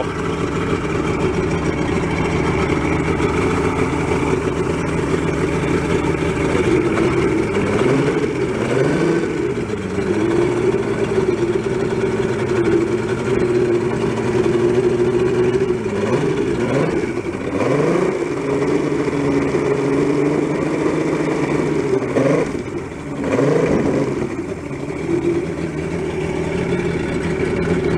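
Mercury 150 two-stroke V6 outboard running with its lower unit in a water test tank, idling and revved briefly several times with the throttle, the pitch rising and falling each time.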